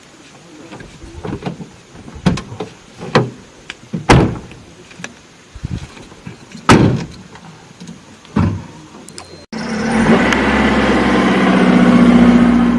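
Car door knocks and thumps, the loudest two about four and seven seconds in; then, after about nine and a half seconds, a small hatchback's engine running steadily and growing louder, cut off abruptly at the end.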